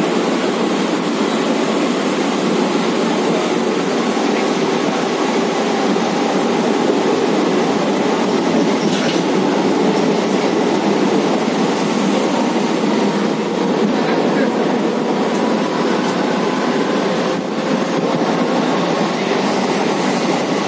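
Electric suburban local train running along the line, heard from on board: a steady noise of wheels on the rails, with a few faint clicks from the track.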